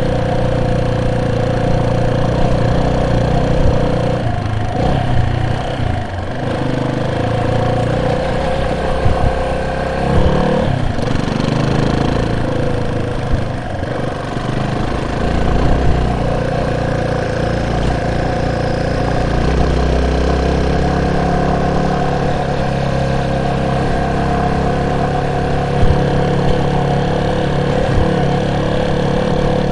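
Vehicle engine running steadily, with low rumble underneath. The engine note dips briefly a couple of times, and there are a few short knocks.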